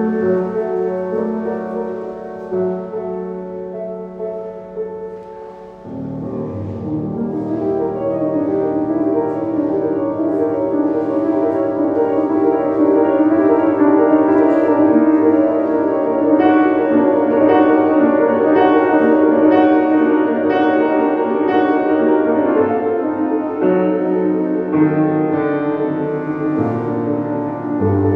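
Solo grand piano playing: a softer passage thins out about six seconds in, then a fuller, louder passage takes over.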